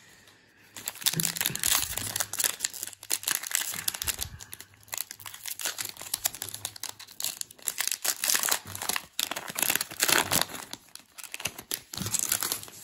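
Foil wrapper of a Panini Playoff football trading-card pack being torn open and crinkled in the hands, a dense crackling that starts about a second in and eases off near the end.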